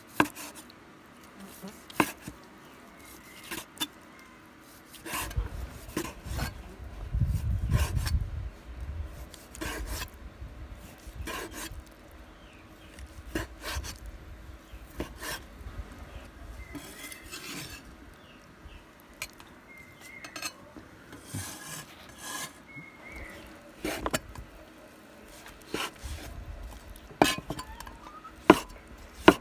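Cleaver slicing cooked cured pork on a wooden chopping board: soft cutting strokes, with the blade knocking sharply on the board every second or two, the loudest knocks near the end.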